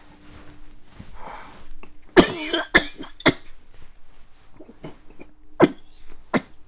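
A man coughing and clearing his throat: a longer rasping cough about two seconds in, two short sharp coughs right after it, and two more near the end.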